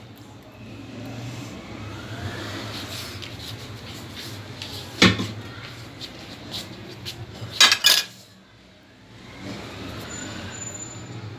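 Porcelain tureen and serving utensils clinking as curry is dished out: one sharp clink about five seconds in and two more close together near eight seconds, over a low steady hum.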